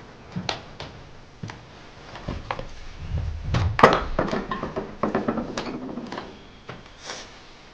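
Scattered light knocks and clicks of footsteps and objects being handled, with a louder burst of knocking and clatter about four seconds in.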